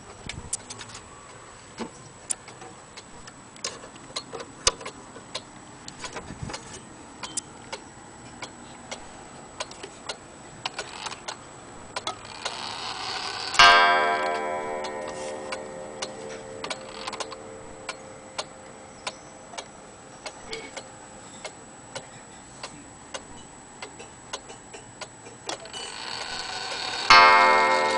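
Antique German spring-driven wall clock ticking as its pendulum swings. About halfway through, the striking train sounds one ringing strike that dies away slowly, and a further strike rings out near the end.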